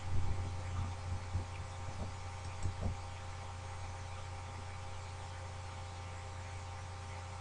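Steady low electrical hum with a few fainter steady higher tones over a hiss, and a handful of soft low thumps in the first three seconds.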